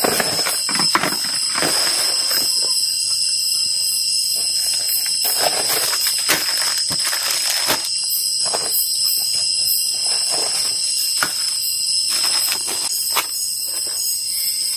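A steady chorus of night insects, high continuous trilling, with rustling of plastic bags and light knocks of camping gear being handled close by.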